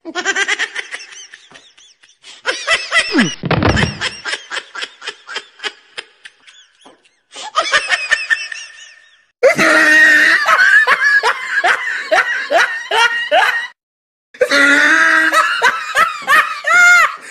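Loud laughter in rhythmic ha-ha pulses, in three stretches that each cut off abruptly into a moment of silence.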